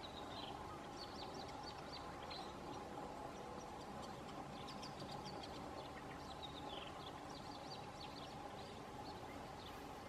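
Small songbirds chirping and twittering in short, scattered high notes, a few of them sliding downward, over a faint steady hum.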